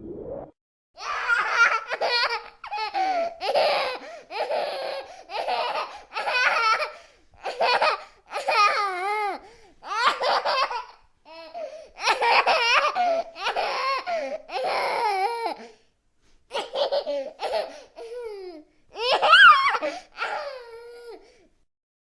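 A young girl laughing in a long run of high-pitched bursts broken by quick breaths, with two brief pauses partway through, stopping shortly before the end.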